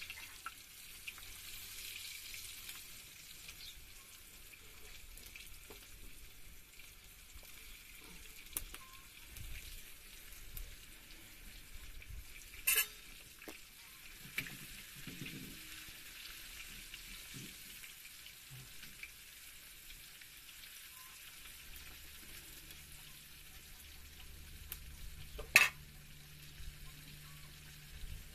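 Flour-coated liver pieces frying in hot oil in a pan, a steady sizzle that is strongest in the first few seconds and then eases. Two sharp clicks break in, about halfway through and near the end, the second one the loudest sound.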